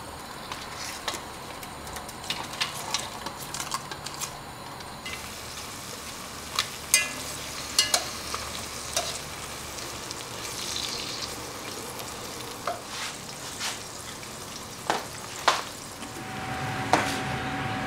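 Sliced ginger, scallion, onion, bay leaves and star anise sizzling in hot peanut oil in a pot, being stirred with a spatula, with scattered sharp taps and pops. This is the aromatics frying to flavour the hot oil for chili oil. Near the end a steady hum with a faint steady tone comes in.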